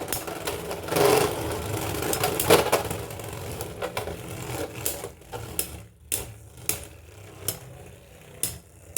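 Beyblade X tops spinning and clashing in a plastic stadium: a dense rapid rattle full of sharp clicks, thinning about five seconds in to separate knocks as the tops slow down.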